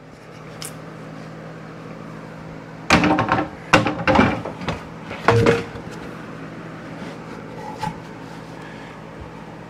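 Wooden boards knocking and clattering as a freshly cut board is lifted and handled on the miter saw table: a burst of clatter about three seconds in, another about a second later, and a shorter knock near five and a half seconds. A steady low hum runs underneath.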